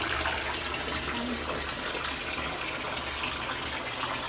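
Water running steadily from a bathtub tap or handheld shower into the tub, a continuous even rush.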